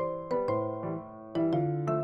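Background music: light piano or keyboard melody over a steady bass line.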